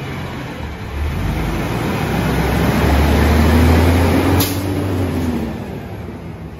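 Heavy truck engine, most likely a garbage truck's, running with a deep rumble that builds to its loudest about halfway through, its pitch rising and then falling, and then fades away. A brief sharp sound cuts in about four seconds in.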